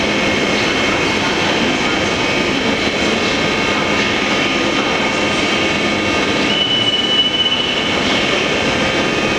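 Siemens Taurus electric locomotive standing at the platform with its cooling fans and converters running: a steady hum and rush with several high whining tones held through it. A further steady high tone sounds for about a second, about six and a half seconds in.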